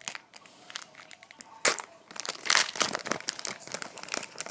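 Foil booster pack wrapper crinkling and tearing open in the hands, in irregular crackly bursts with a sharp rip about halfway through.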